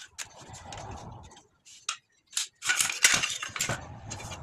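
Metal parts clinking and clattering as they are handled, with a louder rattling scrape lasting about a second past the middle.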